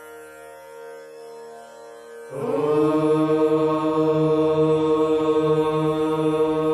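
A soft drone of held tones, then about two seconds in a group of voices starts chanting together on one long, steady note.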